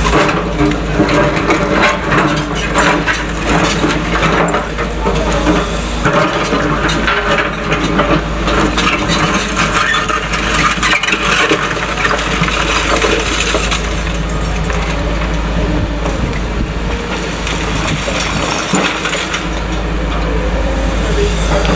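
Caterpillar excavator engine running under load while it breaks up demolition rubble, with many sharp cracks, knocks and crunches of concrete and debris over a steady engine note.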